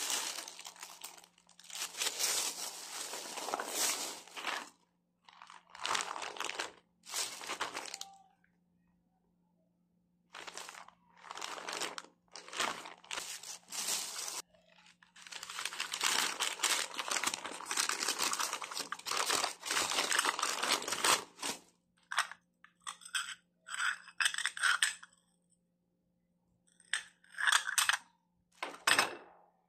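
Thin plastic shopping bags and plastic product packaging crinkling and rustling in irregular bursts as items are rummaged out and handled, with short silent gaps between.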